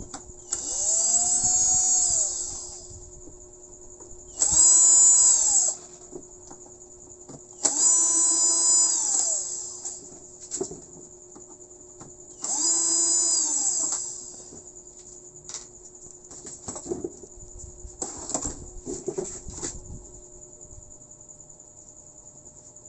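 Cordless drill-driver backing out the back-cover screws of a CRT television: four runs, each winding up to a steady whine and winding down again. Near the end come a few scattered knocks and rattles as the back cover is worked loose and lifted off.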